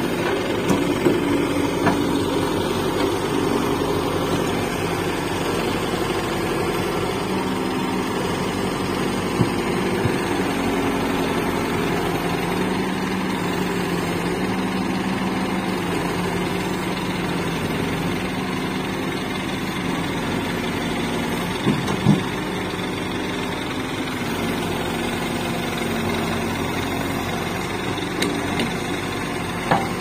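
Backhoe loader's diesel engine running steadily as it digs soil, its note shifting a little as the digging arm works. A few short clunks come through, about a second in, near ten seconds, around twenty-two seconds and at the end.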